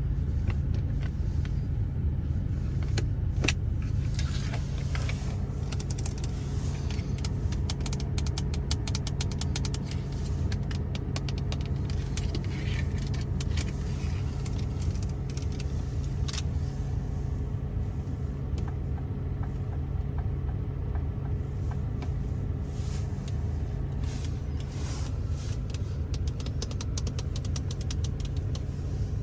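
Fingertip and nail tapping on the interior surfaces of a Ford Focus, in quick clusters of taps with pauses between, over a steady low rumble.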